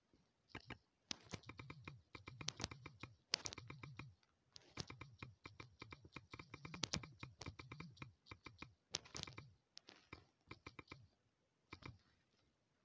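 Faint, quick clicks of typing on a smartphone's on-screen keyboard, coming in fast runs broken by short pauses.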